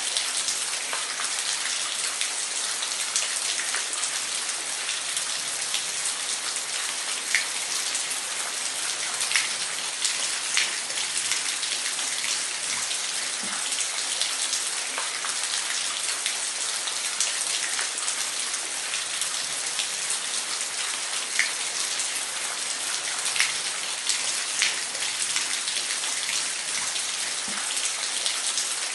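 Waterfall: a steady hiss of falling water with scattered sharper splashes standing out now and then.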